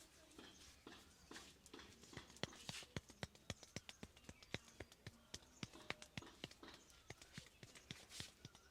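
Hands tapping and slapping on a head during an Indian head massage: quick, irregular sharp taps, about four a second.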